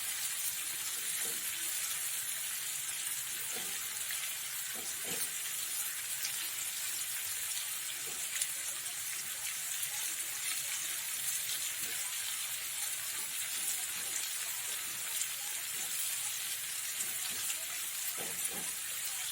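Hot oil sizzling steadily in a frying pan, with a few soft knocks of a utensil.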